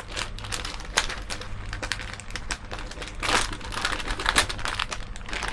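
Plastic packaging bag crinkling and rustling as it is handled, a run of small sharp crackles with a louder rustle about three seconds in.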